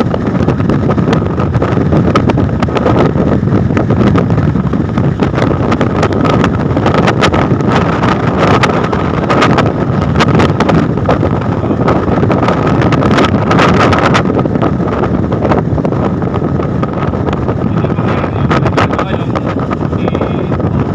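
A car driving at speed: wind buffets the microphone over steady road and engine noise, with a faint steady whine.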